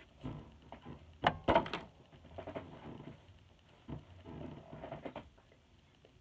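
Handling noise: a few sharp knocks and clicks about a second and a half in, with fainter scattered rustling and taps around them.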